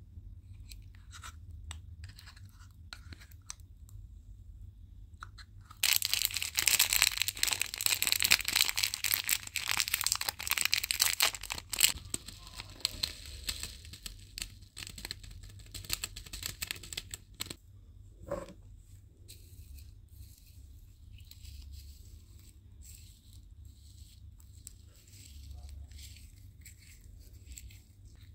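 Crinkly plastic bag of foam beads being handled and the beads shaken out into slime: a dense crackling that starts suddenly about six seconds in and thins out over the next several seconds. Near the end, quieter scattered crackles and pops as fingers press the foam beads into the sticky slime.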